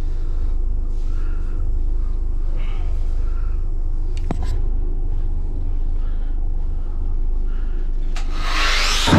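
A steady low rumble fills the steel engine room. Near the end, an angle grinder fitted with a flap wheel starts up, its whine rising quickly into a loud hiss.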